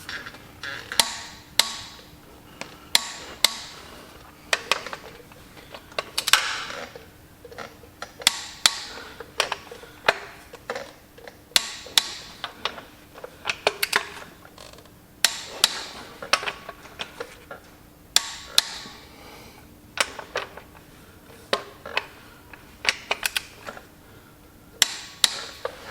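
Click-type torque wrench, preset to 85 ft-lb, tightening flywheel bolts: repeated sharp clicks, often two or three close together, as the wrench breaks at its set torque and is worked round between pulls.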